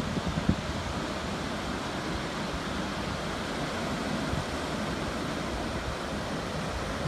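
Sea surf breaking on a sandy, rocky beach: a steady wash of waves.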